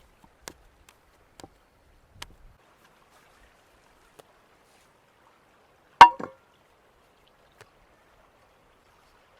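A few faint taps, then one sharp knock with a brief ring about six seconds in, followed closely by two smaller knocks: utensils or cookware being handled while bread dough is prepared.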